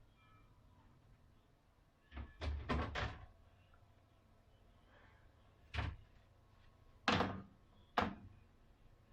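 Kitchenware being handled: a quick cluster of knocks about two seconds in, then three single knocks.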